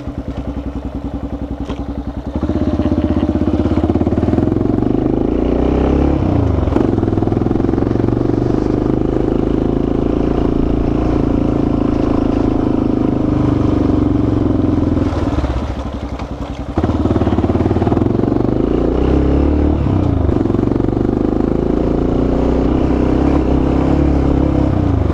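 Motorcycle engine running under throttle while riding uphill. It is quieter for the first couple of seconds, then gets louder as the throttle opens. The pitch dips and climbs again twice, and the engine eases off briefly about two-thirds of the way through before pulling again.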